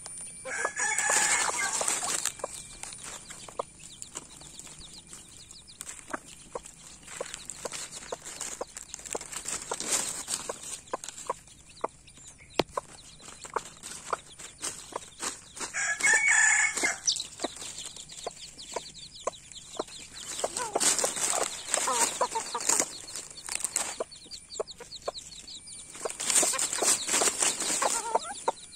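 Chickens feeding together: a rooster and hen clucking and calling while chicks peep, with two loud, longer calls about a second in and again about halfway, and many short scratchy ticks of pecking in dry leaves.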